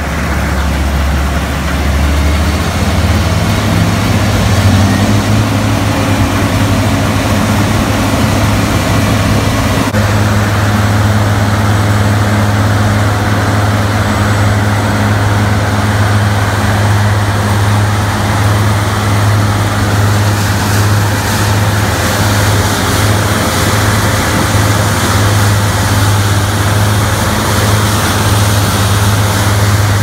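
New Holland combine harvester's diesel engine running loud and steady, rising in pitch a couple of seconds in as it throttles up and then holding its speed. From about two-thirds of the way through, a hiss builds over the engine as the combine starts into the soybeans.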